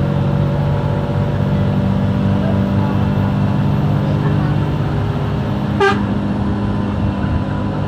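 Mercedes-Benz OF 1623 RF bus's front-mounted diesel engine running steadily under way, heard from inside the cabin. One short horn toot sounds about six seconds in.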